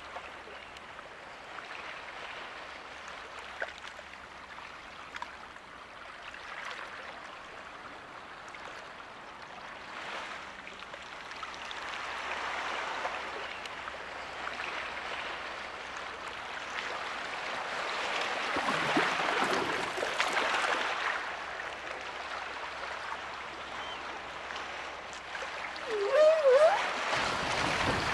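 Sea water washing in waves, a rushing noise that swells and fades again several times, with a short wavering, rising tone near the end.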